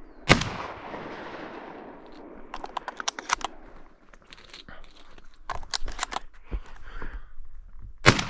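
Two shotgun shots about eight seconds apart: the first about a third of a second in, with a long echoing tail, the second near the end. Between them come runs of quick clicks and rattles.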